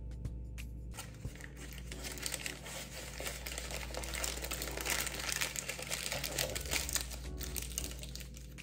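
Baking paper crinkling as a log of soft butter is rolled up in it and the ends are twisted shut, a dense, irregular crackle from about a second in until near the end.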